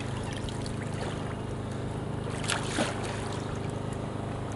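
Small splashes and trickling water from hands sculling at the surface beside a kayak held vertical in a bow stall, with two louder splashes about two and a half seconds in, over a steady low hum.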